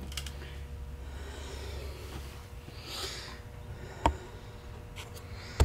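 Low steady hum, a breath through the nose about three seconds in, and two sharp knocks about a second and a half apart near the end.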